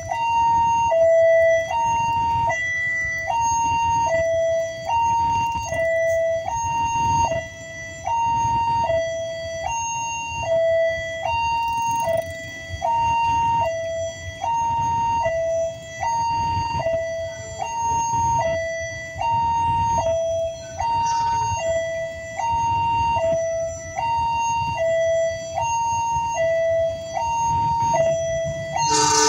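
Railway level-crossing warning alarm sounding its two-tone electronic chime, a high and a low note alternating about once a second, warning of an approaching train. A low rumble of waiting road traffic runs underneath.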